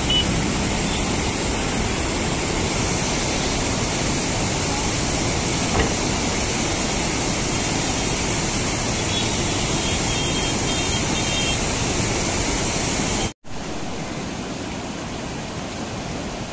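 Swollen river in flood: a steady rushing noise of fast, churning floodwater. It cuts out abruptly for a moment near the end and resumes a little quieter.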